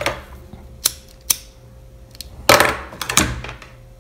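Craft tools knocking and clattering on a tabletop as scissors are set down and a hot glue gun is picked up. A few sharp clicks come first, then a louder clatter about two and a half seconds in.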